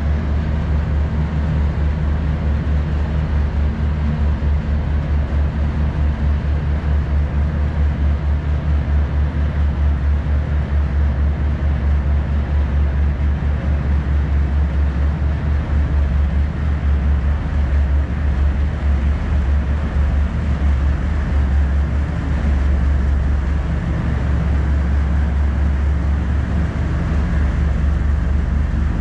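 Ship diesel engines running with a steady low hum as the bunkering tanker manoeuvres away alongside.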